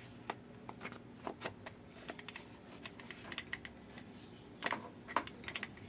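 Irregular light clicks and taps of small parts being handled as the angle grinder is put back together, with a few louder clicks near the end. The grinder's motor is not running.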